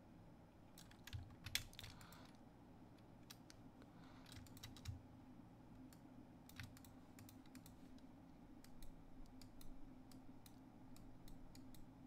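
Faint, scattered clicks of a computer keyboard and mouse, some in quick little runs, over a low steady room hum.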